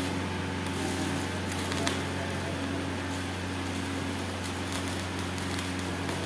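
Electric arc welding: the welding arc crackles irregularly from about a second in, over a steady low electrical hum.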